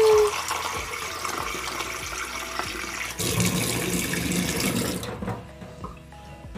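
Water from a kitchen tap running into a stainless steel sink, first filling a plastic cup, then splashing straight onto the sink's bottom, louder for a moment; the flow stops about five seconds in.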